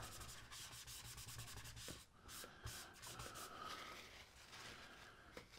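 Paper towel damp with glass cleaner rubbed quickly back and forth over an instrument-cluster gauge face: faint, rapid wiping strokes, broken by short pauses after about two seconds.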